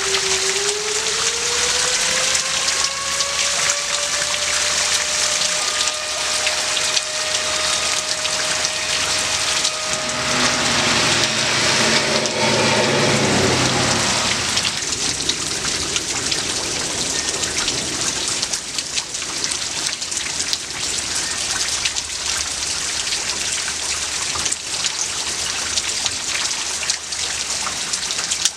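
Heavy rain falling steadily. Over it, a tornado warning siren winds up in pitch and holds a steady wail, then dies away about halfway through, together with a brief louder low sound.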